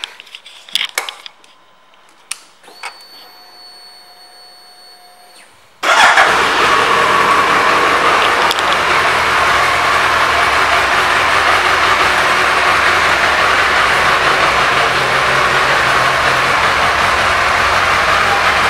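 A few clicks, then a faint steady tone for about three seconds. About six seconds in, the 2004 Suzuki Hayabusa's 1299 cc inline-four fires at once and settles into a steady idle.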